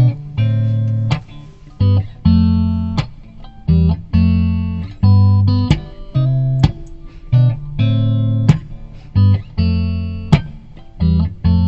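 Instrumental background music: guitar chords struck in a steady rhythm with sharp percussive hits, each chord ringing and fading before the next, with no singing.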